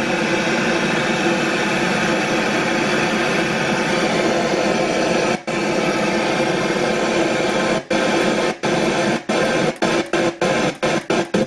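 FM radio static hissing loudly from a portable PA speaker's built-in FM tuner, not yet on a station. About halfway through, the hiss starts dropping out for split seconds, and the dropouts come faster and faster toward the end as the tuner is worked.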